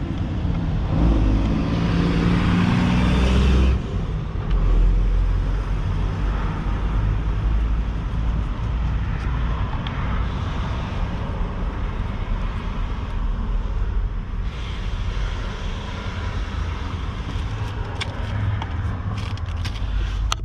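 Steady low rumble of motor-vehicle noise, louder for the first few seconds before it drops off suddenly, with a few light clicks near the end.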